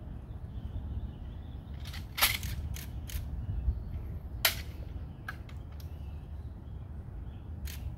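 A series of sharp, irregular clicks or snaps, about seven in all, over a steady low background noise.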